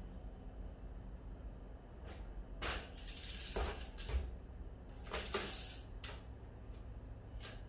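Brompton folding bike's rear frame being swung under the bike and back out on its suspension block, several times: short metallic rattles and clacks from the chain, rear wheel and frame, with one dull thud about four seconds in.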